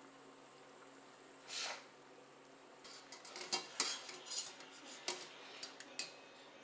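Kitchen utensils knocking against dishware. One brief scrape comes about one and a half seconds in, then a run of light, sharp clinks and taps.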